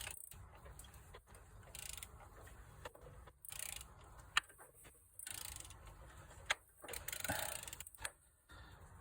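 Audi S6 V8 crankshaft being turned slowly by hand with a wrench: quiet intermittent clicking and rustling of the tool and engine, with a few sharper ticks.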